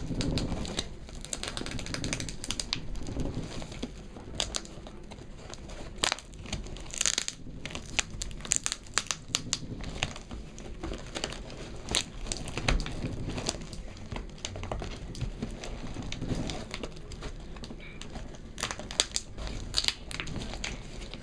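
Packaging being unwrapped by hand: irregular crinkling and rustling with scattered sharp clicks and taps as the wrapping is handled.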